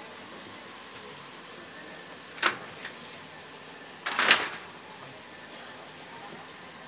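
A sharp knock about two and a half seconds in, then a louder short clatter of several hits a second and a half later, over a steady background hiss inside a railway passenger carriage.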